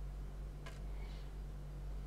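Old watch mainspring being drawn out of its barrel by hand: one small sharp click about two-thirds of a second in and a fainter tick just after, over a steady low hum.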